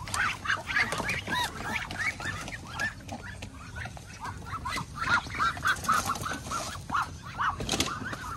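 A crowd of Muscovy ducks calling over one another in many short, high, arched peeps, several a second, while being handled in a wire pen, with a few sharp knocks of the cage and plastic crates.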